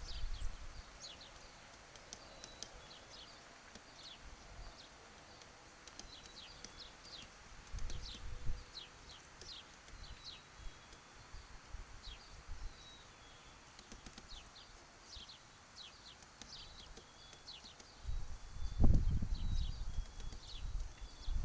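Downy woodpecker pecking at peanuts in a feeder: a long, irregular run of quick, light, sharp taps, with a few short high bird notes. There is a low rumble about eight seconds in, and a longer, louder one near the end.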